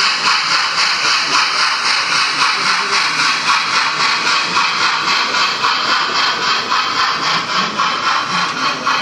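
HO-scale model steam train running past close by: a steady hissing rush with a quick, even pulsing beat.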